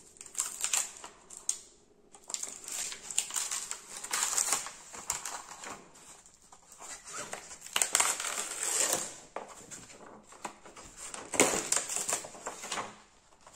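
Clear plastic bagging film crinkling and crackling as it is peeled off a freshly molded glass-fibre glider wing, in several bouts with short pauses between.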